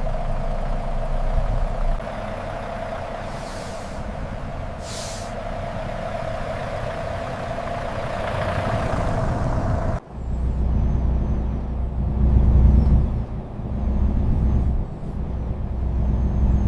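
Heavy truck: two short air-brake hisses over a steady mechanical hum. About ten seconds in the sound cuts abruptly to a low, heavy truck engine running, swelling and dipping.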